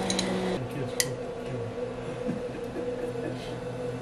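Steady machine hum with a sharp click about a second in.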